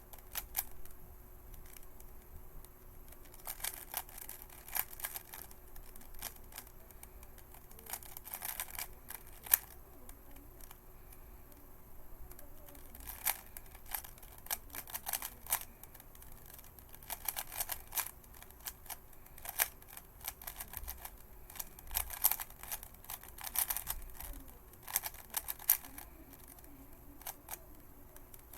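3x3 Rubik's cube being turned fast by hand in a timed solve: bursts of rapid plastic clicking as the layers snap round, broken by short pauses between runs of moves.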